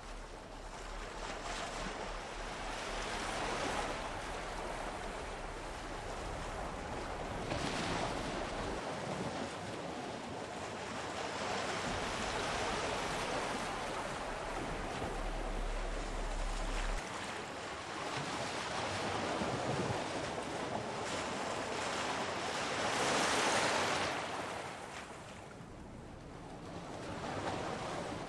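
Water rushing along the hull of a moving lake boat, mixed with wind, swelling and easing every few seconds with the loudest swell near the end.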